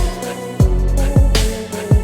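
Background music with a steady hip-hop style beat: deep kick drums sliding down in pitch and held melodic notes.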